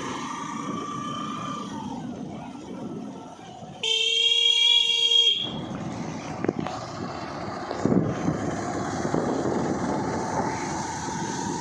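Vehicle horn sounding once, a single held blast of about a second and a half, over steady road and wind noise from a moving vehicle.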